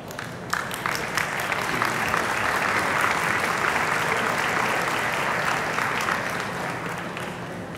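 Audience applauding, starting about half a second in, building to a steady peak and fading toward the end.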